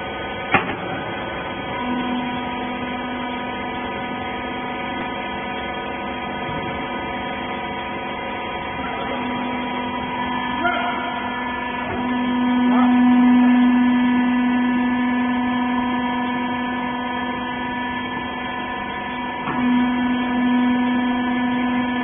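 Hydraulic rag baler's electric motor and pump running with a steady hum, starting about two seconds in and growing louder through the middle as the press works. A sharp click comes just before the hum starts.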